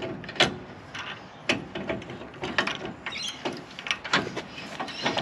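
Boat trailer jockey wheel being wound by its crank handle, the screw mechanism giving a string of uneven metal clicks and rattles.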